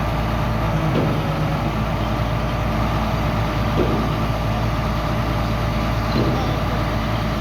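Heavy diesel engine of an excavator or dump truck running steadily, with a constant whine above its low drone.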